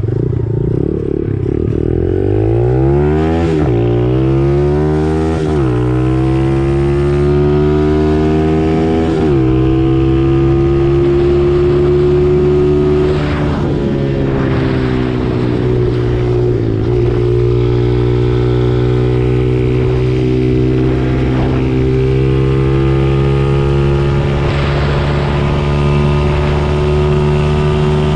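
Amigo Rocky 125 (Honda CT70 clone) single-cylinder four-stroke engine through an aftermarket pit bike exhaust, accelerating through the gears. The revs climb and drop at each shift, about three and a half, five and a half and nine seconds in, then hold steady at cruising speed with brief dips.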